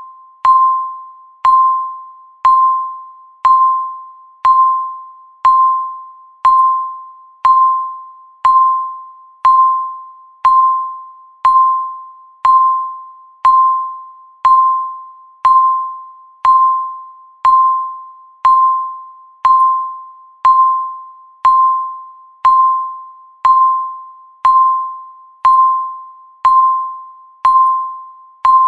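Countdown timer's tick sound, one per second: each tick is a sharp, bell-like ding on a single pitch that rings and fades out just before the next.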